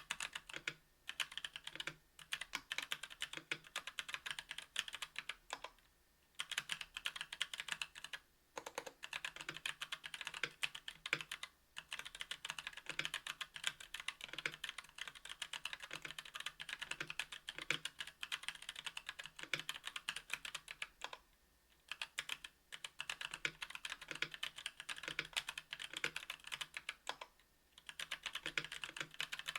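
Mechanical keyboard typing: a KBDfans Tofu 60% aluminium-case keyboard with an aluminium plate, Domikey x Kailh Cyberpunk Pink Purple 62 g tactile switches and GMK keycaps, struck in fast runs of keystrokes broken by brief pauses.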